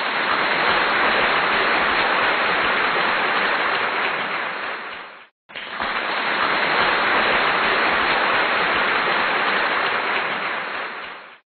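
A crowd applauding as a dense, even patter of clapping, in two stretches broken by a brief gap about five seconds in.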